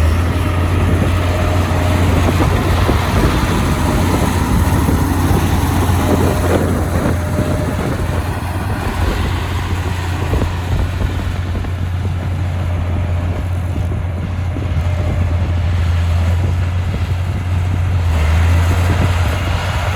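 Heavy diesel engine of earthmoving machinery running steadily, a constant low drone with a wide noisy spread above it.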